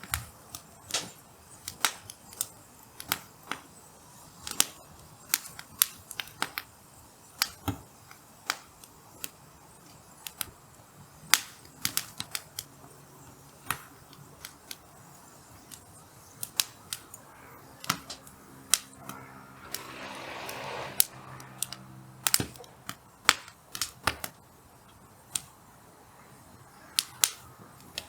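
Hardwood logs burning in a campfire, crackling and popping irregularly with sharp snaps. About twenty seconds in, a brief rushing sound swells and fades.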